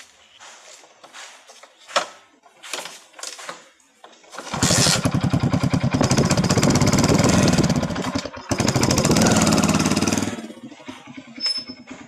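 Hero Splendor motorcycle's single-cylinder four-stroke engine starting after a few small clicks, catching at once and running for about six seconds with a brief dip near the middle, then cutting off. It starts and runs now that the water-soaked spark plug boot has been replaced with a new one.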